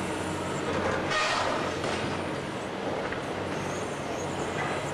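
High-reach demolition excavator running, its hydraulic crusher jaws crunching into a concrete cornice, with a louder burst of crunching about a second in.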